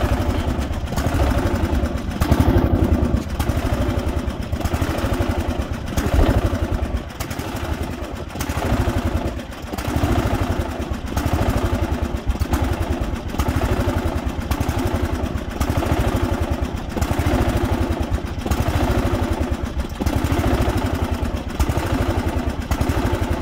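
Craftsman riding lawn mower's engine running at low speed. Its note swells and eases about every second and a half.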